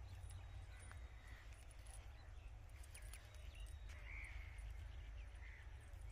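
Faint outdoor ambience: a steady low rumble with a few faint, short distant bird calls and light scattered ticks.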